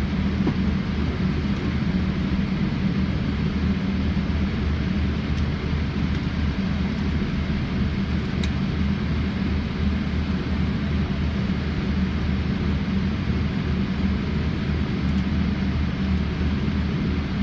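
Airliner cabin noise during taxi: the jet engines' steady low hum and rumble, heard from inside the cabin.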